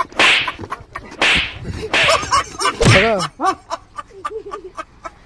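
Four slaps land in quick succession, each a swishing smack about a second apart, over the first three seconds. Short cries come between and after the later slaps.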